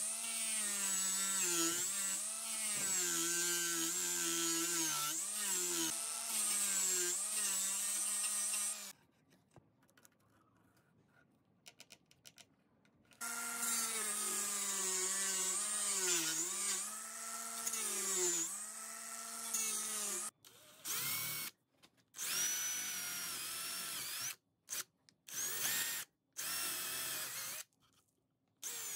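Angle grinder with a disc cutting into a pine board, its motor pitch dipping each time the disc bites the wood. It stops for about four seconds, then cuts again. In the last third, short bursts of an electric drill boring holes into the wood, starting and stopping several times.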